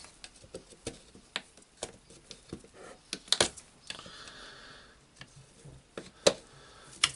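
Screwdriver tip clicking and scraping against the plastic carbon brush cap and housing of a Makita DGA452 cordless angle grinder while prying and turning the cap out. Irregular small ticks throughout, with a few sharper clicks about three and a half and six seconds in.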